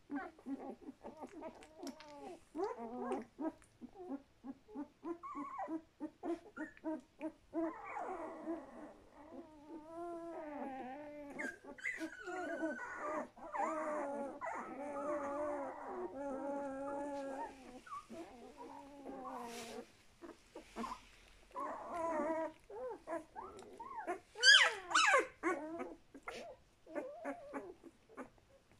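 One-week-old puppies whimpering: a quick run of short squeaks and grunts, then longer wavering whines, and a brief sharp high squeal near the end.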